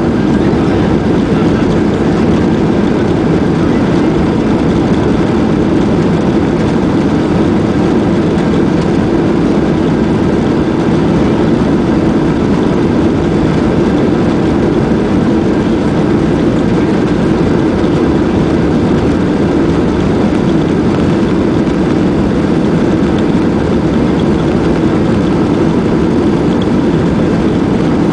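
Steady, loud jet-engine and cabin noise from inside a Boeing 737-800 taxiing on the ground, its CFM56-7B engines at low thrust.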